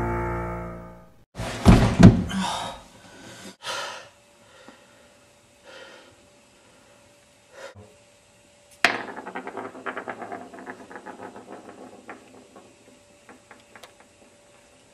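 Piano-and-guitar music fading out, then a few heavy thumps. About nine seconds in, a small toy top is let go on a wooden floor: a sharp click, then a fast run of rattling ticks that slowly die away.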